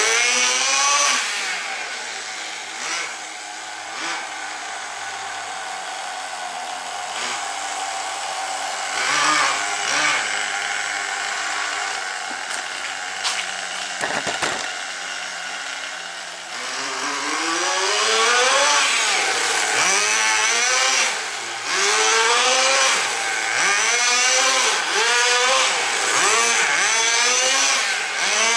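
Tamiya TGX 1/8-scale RC car's small two-stroke nitro glow engine running and revving up and down as the car is driven. It is quieter and steadier for the first half while the car is far off, then louder from about halfway on, with quick repeated rises and falls in pitch.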